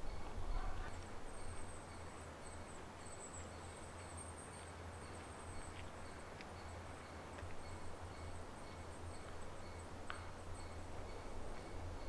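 Quiet forest ambience: a steady low wind rumble, with a thin, high wavering whistle over the first several seconds and a few faint ticks.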